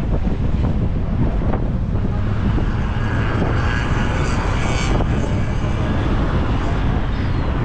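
Wind buffeting the microphone in a steady low rumble, over continuous engine and traffic noise from the harbour and bridge.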